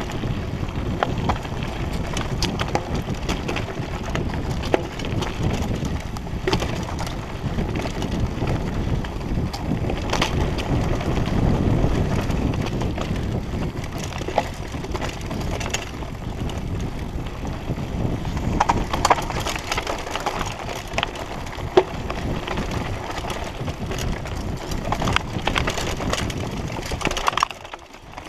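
Mountain bike rattling and clattering down a rough dirt singletrack: steady tyre noise on the dirt with many sharp knocks and clicks from the bike jolting over the bumps. It goes quieter briefly near the end.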